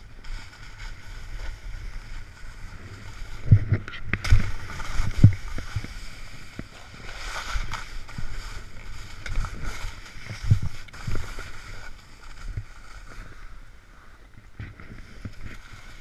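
Snowboard edge scraping and hissing over snow as it carves through the trees, with wind on the microphone. Several dull thumps from bumps come between about three and a half and five and a half seconds in, and once more about ten seconds in.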